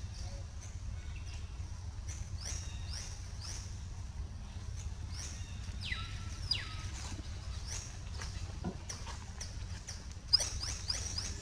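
Short, high chirping animal calls repeating every second or so, with one longer falling call about six seconds in and a quick run of chirps near the end, over a steady low rumble. A sharp click near the end is the loudest moment.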